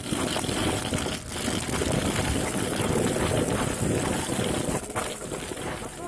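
Homemade RC car driving over a gravel road, its wheels rumbling and rattling over the stones without a break, picked up by a phone riding on the car.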